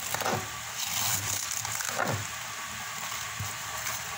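Large kitchen knife shredding a head of cabbage on a cutting board: a run of crisp, crunchy slicing cuts, with a few sharper strokes as the blade goes through to the board.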